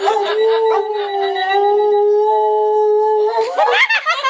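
Dog howling: one long, steady howl of about three seconds, the howl it gives whenever the phone rings.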